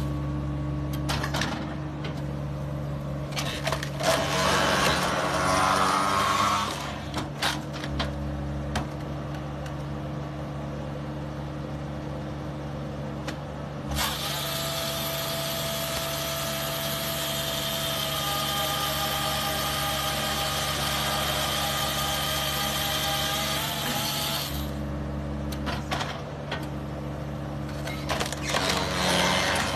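BTD firewood processor at work on a log: a steady engine and hydraulic drone throughout, with louder stretches of cutting and splitting and scattered knocks of wood.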